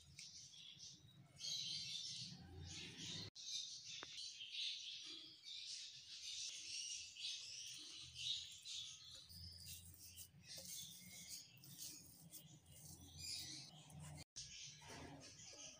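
Faint, continual chirping of small birds, over a steady low hum.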